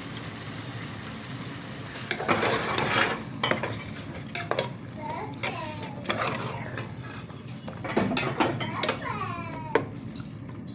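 Food frying in a pan with a steady sizzle while a metal utensil stirs and scrapes, clinking against the pan several times.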